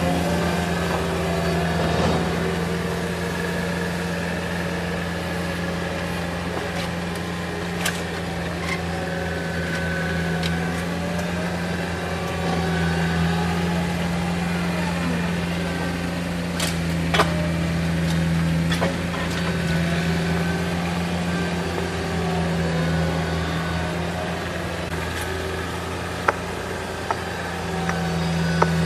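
A heavy construction machine's engine running steadily with a deep hum, with a few sharp clicks or knocks over it.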